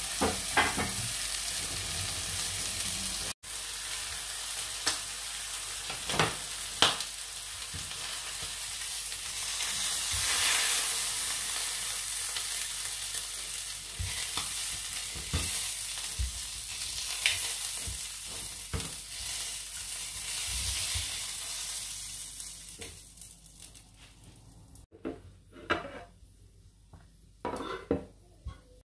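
Squid frying in hot oil in a stainless steel pan, a steady sizzle with scattered clicks and scrapes of metal tongs against the pan. Over the last few seconds the sizzle dies down and a few separate clinks stand out.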